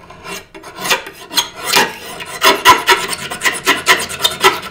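Utility knife razor blade scraped back and forth against a steel flat pry bar to dull its cutting edge, so it won't gouge the wood or cut the hand. The scrapes come in a quick rasping run, about five strokes a second, and get louder about halfway through.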